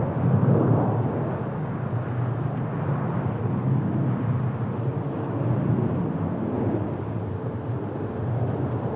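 Jet engine noise of a landing Airbus A319-115 with CFM56 engines: a steady low rumble, with a faint steady hum coming in about halfway through.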